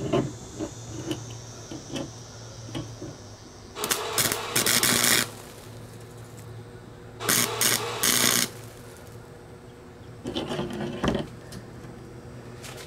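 A 110-volt Harbor Freight flux-core wire welder lays three short tack welds, each a second or so of crackling, sputtering arc, about four, seven and ten seconds in. Before them come a few light clicks and taps as the clamp and steel-wire frame are handled, over a steady low hum.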